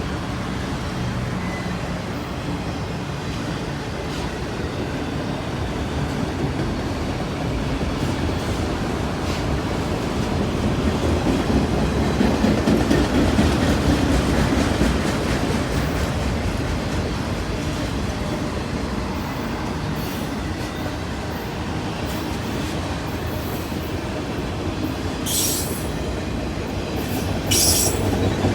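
Freight cars of a manifest freight train rolling past on the rails: a steady rumble and clatter that swells louder about twelve seconds in, with a few brief high-pitched wheel squeals near the end.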